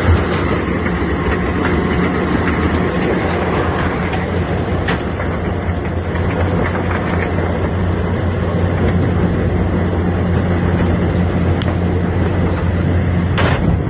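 Metso Lokotrack LT200HPS mobile cone crushing plant running: a steady, loud machine drone with a low hum, and a few scattered clicks.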